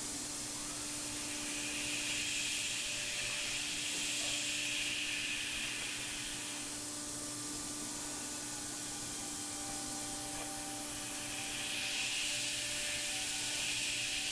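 Thermwood 5-axis CNC router running, its spindle giving a steady whine under the hiss of the compressed-air blast aimed at the cutter, as a 1/8-inch cutter routes a polyethylene part. A brighter, higher hiss swells for several seconds, drops away about halfway, and comes back near the end.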